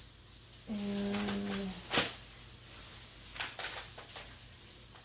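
A short hissing spritz from a hand-pump spray bottle about two seconds in, followed by a few fainter brief hisses or rustles a little later.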